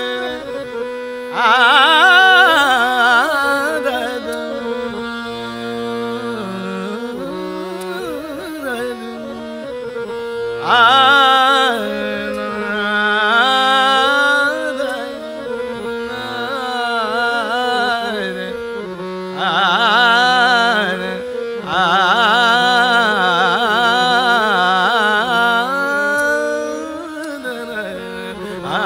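Hindustani classical vocal music: a steady tanpura drone under ornamented, wordless melodic phrases from the voice and harmonium, swelling in several loud passages.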